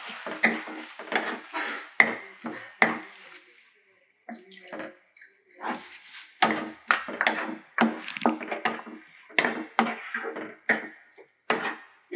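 Wooden spatula scraping and stirring vegetables in sauce in a nonstick wok, in quick, irregular strokes of about two a second, with a short pause about four seconds in. A light sizzle fades out in the first couple of seconds as cornflour slurry goes into the pan.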